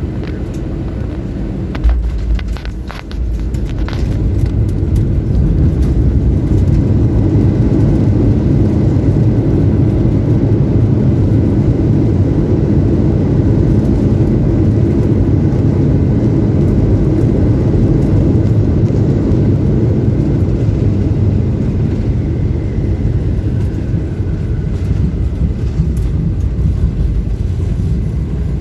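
Airbus A320 touching down with a jolt and rattle about two seconds in. About four seconds in the engines run up to reverse thrust, and a loud, steady, deep rumble of reverse thrust and wheels rolling on the runway follows through the landing roll.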